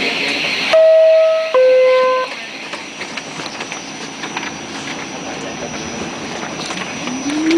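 R46 subway car's two-tone door chime, a higher tone then a lower one, each under a second, warning that the doors are about to close. Afterwards the car hums steadily with small clicks, and a low whine rises in pitch near the end.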